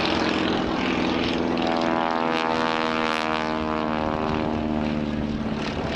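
Stinson Reliant's radial engine and propeller droning as it flies past in a display, its pitched engine note shifting as it passes.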